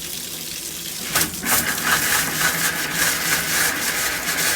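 Water running from an open tap, turning louder and spitting and sputtering from about a second in, as the water lines are emptied for winter.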